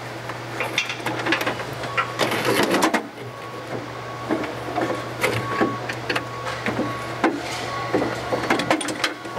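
Jeep Wrangler clutch hydraulic line and slave cylinder being pulled by hand up through the engine bay: irregular rubbing, scraping and clicking as the line and its fittings drag past the body and engine parts, over a steady low hum.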